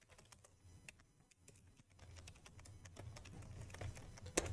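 Faint computer keyboard typing: a quick, uneven run of key clicks as a command is typed, with one louder key click near the end.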